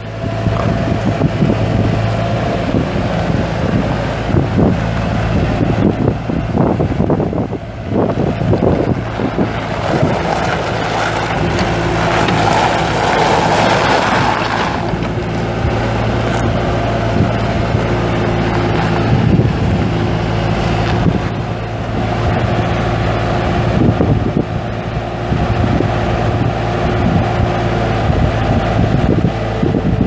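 1999 Bobcat 873 skid steer's four-cylinder diesel engine running steadily, with wind buffeting the microphone. It gets louder for a few seconds near the middle.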